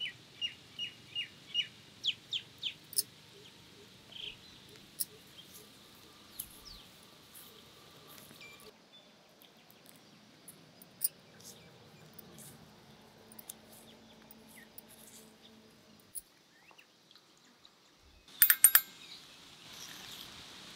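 A small bird chirping about eight times in quick succession, each note short and slightly falling, then faint scattered ticks and, near the end, a quick flurry of loud, sharp clicks.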